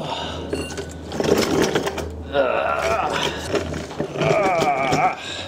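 A tight, rusty 17 mm lower ball joint fastener creaking and squealing as a breaker bar and socket force it loose. It makes several drawn-out, wavering creaks, the longest two in the second half.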